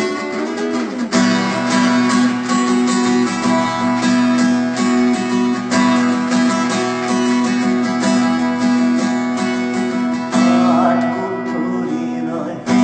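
Instrumental break of a Bengali folk-rock song, led by strummed acoustic guitar.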